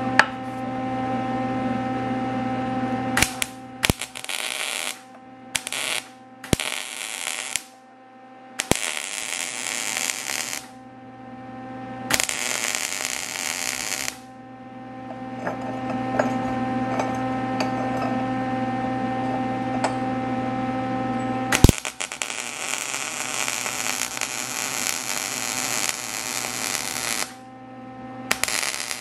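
TIG welding arc hissing in repeated bursts, from a fraction of a second to several seconds long, each starting and stopping sharply, over a steady electrical hum.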